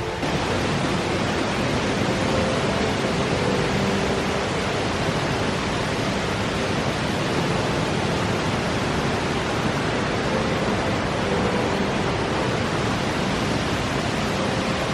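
Steady rush of a mountain valley stream, an even hiss of water that starts abruptly and holds level.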